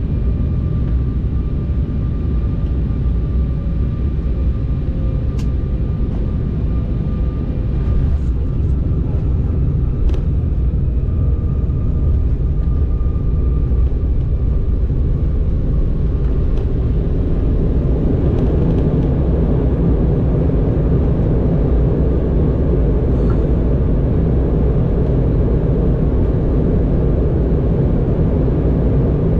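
A regional jet's turbofan engines running, heard as a steady heavy rumble with a faint high whine, one of the lower whines sagging a little in pitch early on. About 17 seconds in, the rushing noise swells and stays louder. A couple of sharp clicks come through about 5 and 10 seconds in.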